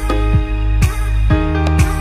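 Background music with a steady beat, about two beats a second, over sustained bass and chords.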